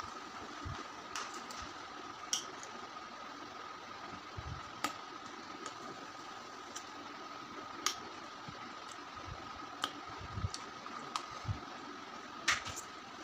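Quiet eating sounds from raw, unripe hog plum dipped in salt and chilli: a handful of sharp clicks and crunches from biting and chewing, spaced a second or more apart, over a steady room hum with a faint high whine.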